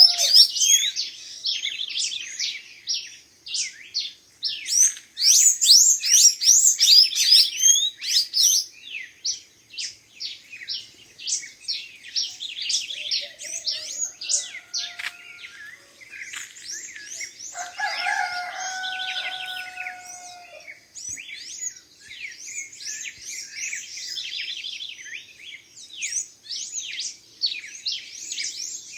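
Several songbirds singing together at dawn: dense, rapid high chirps and trills that overlap throughout, with a lower, drawn-out call a little past the middle.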